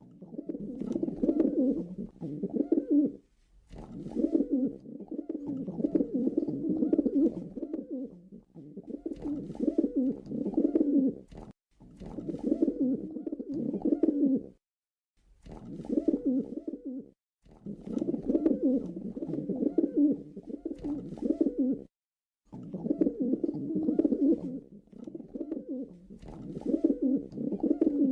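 Pigeons cooing: low, rolling coos in phrases of a few seconds, with short breaks between them.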